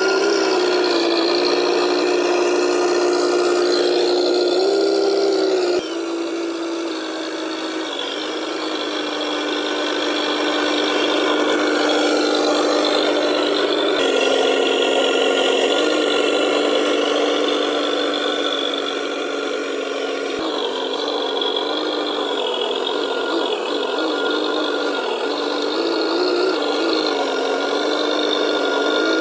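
Simulated truck engine sound from the Tamiya Unimog RC truck's onboard sound unit, running steadily with its pitch stepping up and down as the throttle changes. It has no deep bass, and it jumps abruptly about 6, 14 and 20 seconds in.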